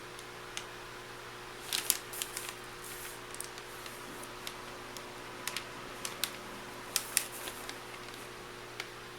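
Scattered crinkles and sharp clicks of MRE plastic packaging being handled, irregular and brief, busiest about two seconds in and again around seven seconds, over a faint steady hum.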